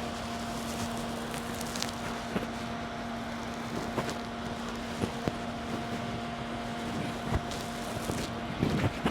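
Handling noise on an Andoer lapel microphone as it is forced into a tight furry windscreen: scattered rubs and clicks against the mic. Under it runs a steady fan hum with a held low tone.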